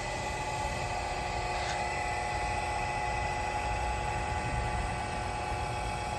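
Matsumoto Kikai RD-5-INW welding turning roll running under its electric drive, a steady mechanical hum with a constant whine.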